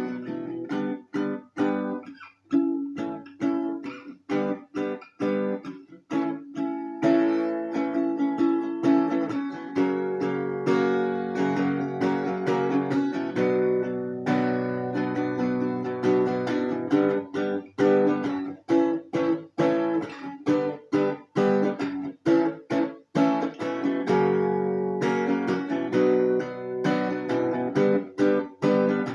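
Acoustic guitar strummed in steady rhythm, chords ringing between strokes: an instrumental passage without vocals.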